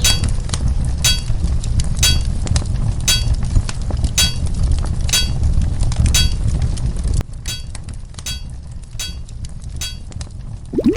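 Hammer striking an anvil about once a second, each blow ringing, over a low steady rumble that cuts off about seven seconds in; after that come softer, quicker taps, and a short rising tone at the very end.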